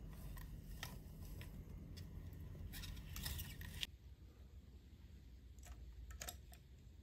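Small gravel crunching and scraping as a toy bulldozer's blade is pushed through it on a hard floor, with light clicks, heaviest just before it cuts off a little under four seconds in. After that, only a few faint clicks as the toy is handled.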